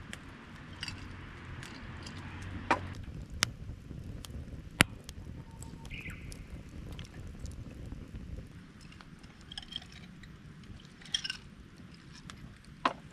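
Campfire burning with a low rumble and a few sharp pops and cracks of the wood. A small bird chirps briefly now and then.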